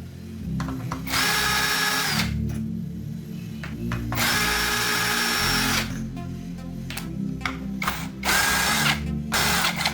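A power tool running in several bursts, each with a steady high whine: two of a second or more, then two short ones near the end. Background music plays underneath.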